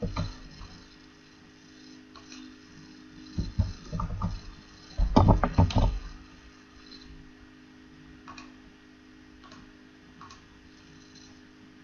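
Scattered clicks and knocks from someone working at a computer, with a dense cluster of them about five seconds in being the loudest, over a steady low hum.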